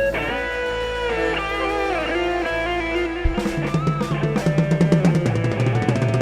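Live band playing an instrumental passage through the stage PA: a sustained lead guitar line with bending notes, then drum kit and bass guitar come in about three seconds in.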